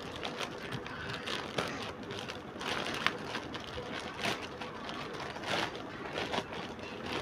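Thin plastic courier mailer bag crinkling and rustling in irregular crackles as it is pulled and opened by hand.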